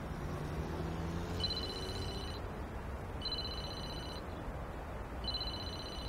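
Smartphone ringing with an incoming call: a steady two-tone electronic ring sounds three times, each ring about a second long and about two seconds apart, starting about a second and a half in, over a low steady background rumble.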